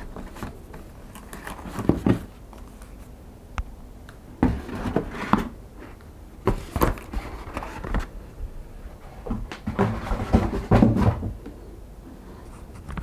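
Cardboard packaging and paper being handled: irregular rustling and scraping with light knocks, in several bursts.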